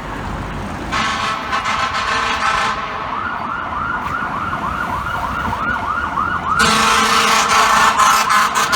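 FDNY fire truck responding with horn and siren. An air horn blasts about a second in, then an electronic siren yelps in fast sweeps about four times a second. The horn blasts again, louder, over the yelp near the end.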